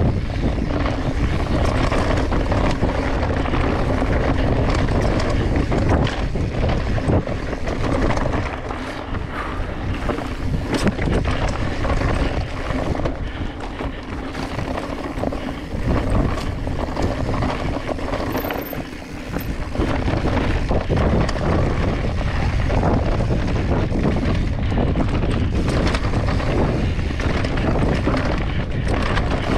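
Mountain bike descending rocky dirt singletrack: wind rushing over the camera microphone mixed with the tyres rolling over dirt and rock, and frequent knocks and rattles from the bike as it hits rocks. The noise eases for a few seconds around the middle, then picks up again.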